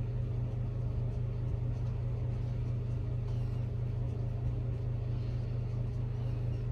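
Steady low hum of background noise with no other clear sound.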